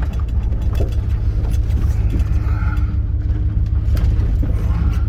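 Polaris vehicle driving with its engine running, a deep, uneven rumble and a faint steady whine above it, with small knocks and rattles from the ride.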